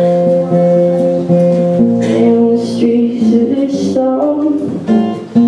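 Acoustic guitar strummed in a steady rhythm, the chord changing a few times.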